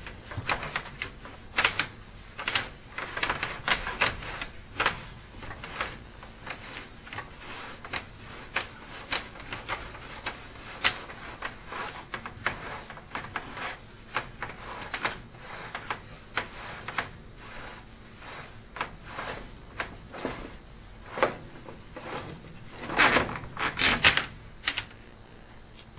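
Sewer inspection camera and its push cable being pulled back out through the pipe: a run of irregular clicks and knocks, with a louder cluster near the end.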